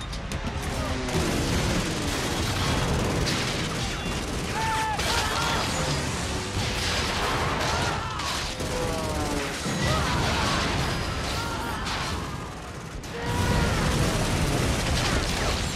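War-film battle soundtrack: dense anti-aircraft gunfire and explosion booms, with men's shouts and cries over it. The din dips briefly about thirteen seconds in, then surges back louder.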